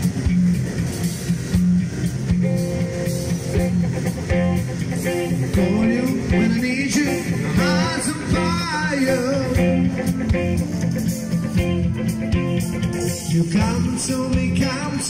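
Live rock band playing loud through a PA: electric guitars over bass and a drum kit, with keyboards. About halfway through, a melody line comes in that bends and wavers in pitch.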